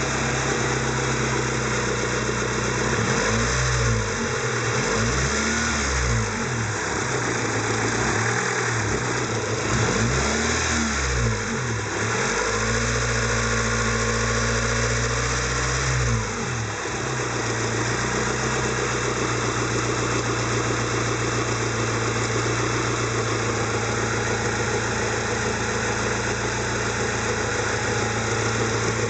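Honda Civic 1.5 engine idling, blipped up and down several times in the first half and then settling back to a steady idle, with a constant high-pitched whine over it. It is a timing-belt-area noise whose cause the owner is unsure of: an over-tight timing belt, the water pump or the tensioner.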